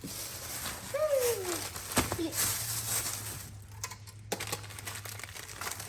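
Plastic packaging crinkling and rustling as a new car stereo is unpacked, with a short falling voice sound about a second in and a sharp click about two seconds in.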